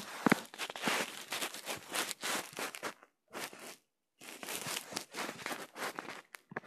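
Crackling, rustling handling noise from a phone held and moved close to the face, with fingers and clothing rubbing over the microphone. It comes in irregular bursts, with brief breaks about three and four seconds in.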